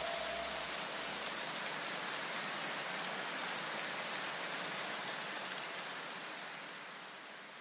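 A steady, even hiss like falling rain, the noise tail left after the electronic background music's beat stops, with a low rumble dying away in the first second or two; the hiss fades out slowly near the end.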